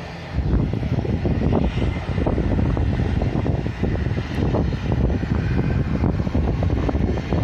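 Strong wind buffeting the microphone in uneven gusts, a loud ragged rumble.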